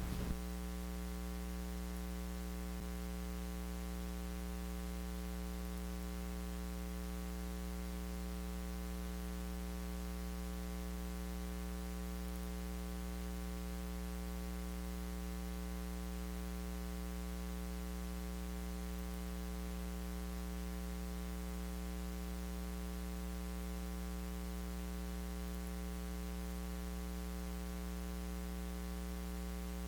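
Steady electrical mains hum from the sound system: a constant low buzz with many higher tones stacked above it and faint hiss, unchanging throughout.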